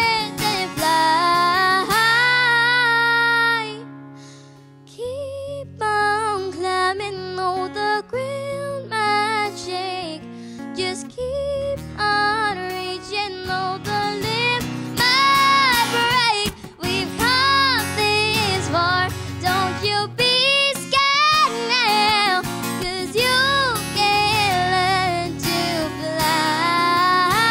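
A young girl singing a country song with acoustic guitar accompaniment, her voice briefly dropping out about four seconds in.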